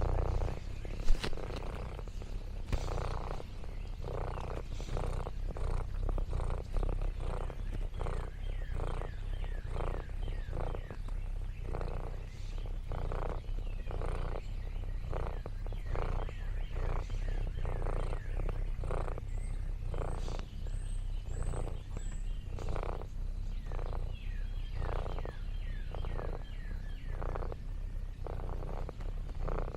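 Orange tabby cat purring close to the microphone: a steady rumble with an even rhythm of about three purring breaths every two seconds. A few faint high chirps come about two thirds of the way through.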